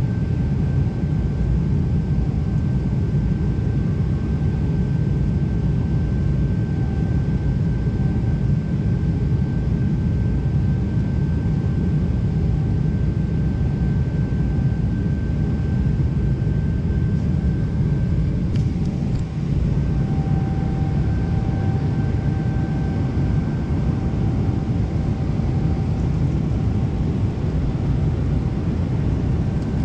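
Steady cabin noise of a Boeing 777 airliner: an even rumble of engine and airflow noise with a faint steady whine over it. The whine grows a little stronger about two-thirds of the way through.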